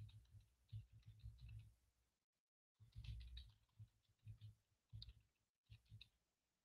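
Faint typing on a computer keyboard: irregular flurries of keystrokes, each a light click with a dull thud, with a short pause about two seconds in.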